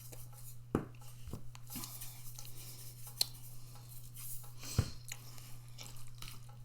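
A few sharp clicks and knocks of a utensil against a plastic microwave meal tray, handled at the table, over a steady low hum.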